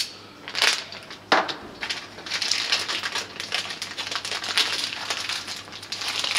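Clear plastic bag crinkling and rustling as it is handled, in irregular crackles, with a sharper crackle about a second in.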